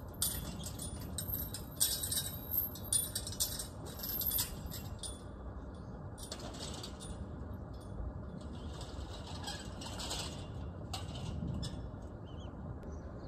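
Outdoor background noise: a steady low rumble, with bursts of high hissing rustle that come and go, strongest in the first few seconds and again near the middle.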